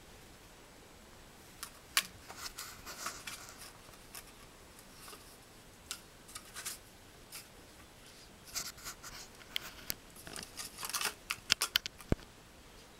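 Welsh springer spaniel puppies pawing and nosing at a fleece blanket and cardboard toilet-roll tubes on a hard floor: scattered scratches, rustles and sharp clicks. These come in two busy spells, about two seconds in and again over the last few seconds.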